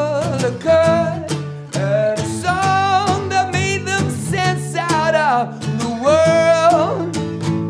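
Acoustic guitar strummed steadily while a man sings a melody over it, holding some long notes with vibrato.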